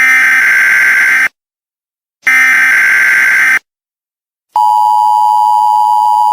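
Emergency Alert System signalling: two harsh digital data bursts of about a second each, with short silences between, then the steady two-tone EAS attention signal starting about four and a half seconds in.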